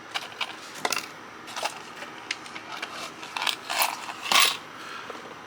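Small pieces of metal scrap clinking and clattering as they are handled and dropped into a weighing cup: a scattered run of short, sharp clicks, loudest a little past the middle.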